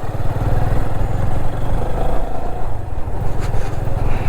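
Motorcycle engine running steadily under way, with a heavy low rumble.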